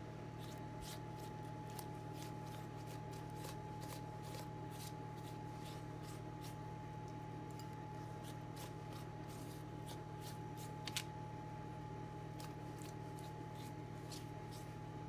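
Silicone pastry brush dabbing and stroking melted butter mixed with milk onto raw bread dough: soft, sticky, irregular ticks, two or three a second, with one louder knock about eleven seconds in, over a steady hum.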